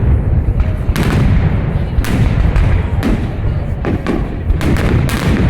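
Fireworks salute going off, a sharp bang about once a second over a continuous low rumble, with a quick cluster of bangs near the end.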